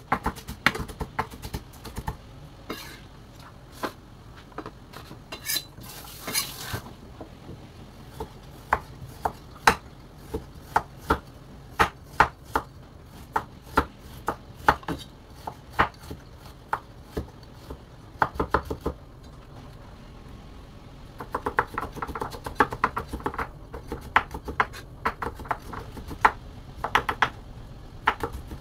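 Chef's knife chopping on a bamboo cutting board, slicing a carrot into rounds and then into sticks. Each stroke is a sharp knock on the board, spaced about a second apart at first, then in quicker runs of chops in the last third.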